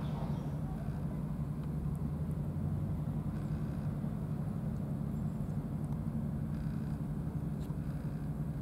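Steady low mechanical rumble with a low hum.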